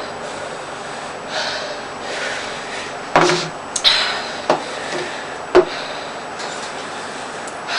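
A person breathing hard against the burn of freshly eaten habanero peppers, with four sharp knocks around the middle.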